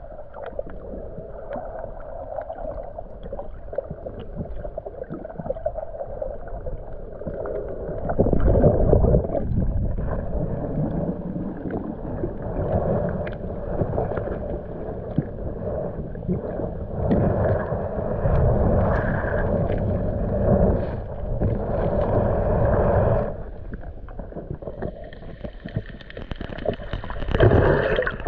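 Muffled underwater sound of water and bubbling gurgles while snorkelling. It grows louder and busier from about eight seconds in, and turns brighter and splashier near the end.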